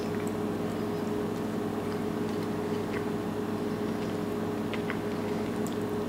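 Steady low hum made of several held tones, with a few faint soft clicks from chewing a piece of peanut butter fudge.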